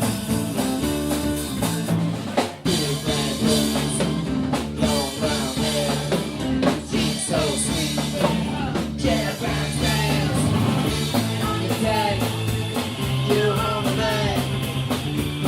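Rock band playing a song, with drums and singing.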